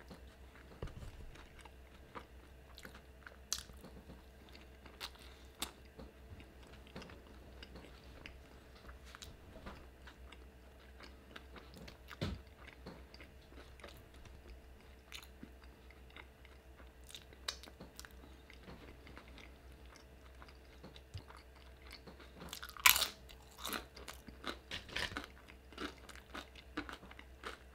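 Close-miked eating: chewing a soft taco with scattered small clicks, then crunching tortilla chips, with the loudest burst of crunches a little over twenty seconds in.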